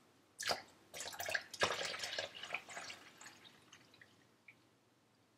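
Chicken stock poured from a stainless steel pot into a towel-lined strainer over a steel bowl: a sharp knock about half a second in, then splashing and trickling, loudest in the first three seconds and fading after.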